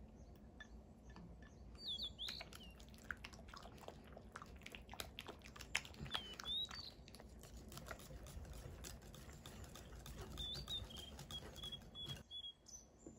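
Silicone spatula scraping and clicking against a glass mixing bowl as it stirs thick cream-cheese batter, with a few short high squeaks.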